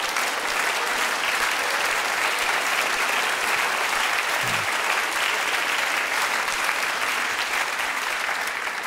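Studio audience applauding steadily after a punchline, the clapping fading near the end.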